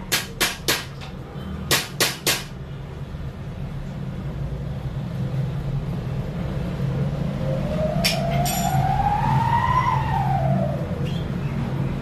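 Small hammer tapping nails into a wooden birdcage frame: two quick runs of three taps in the first couple of seconds. Later a faint wailing tone rises slowly and falls away near the end, over a steady low hum.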